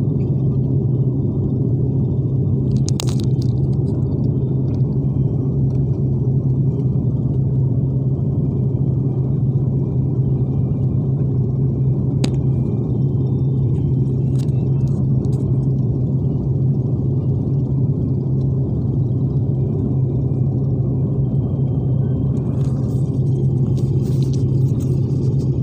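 Steady low drone inside an airliner's cabin in flight: engine and airflow noise with a strong low hum. A few faint brief clicks are heard, one about three seconds in and another about twelve seconds in.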